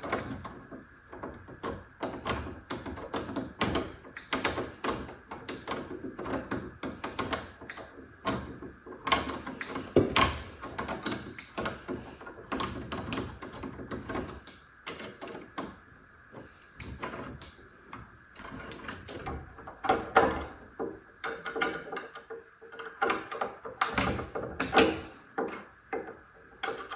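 Door knob hardware being fitted: a small screwdriver turning the mounting screws into the knob, with many irregular small clicks, knocks and metal rattles of the latch and handle parts.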